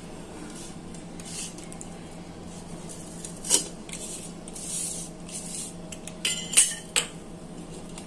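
A steel pizza-cutter wheel scraping through crisp pizza crust on a steel plate, with sharp metallic clinks of metal on the plate, the loudest cluster near the end.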